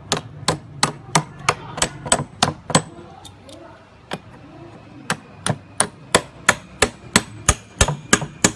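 A hammer tapping a steel expansion anchor bolt through a mounting bracket into concrete. It lands about three sharp blows a second, with a pause of about two seconds midway.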